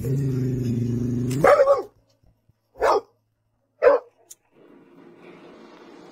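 Dog growling low and steadily for nearly two seconds, ending in a sharper rising cry, then two short barks about a second apart.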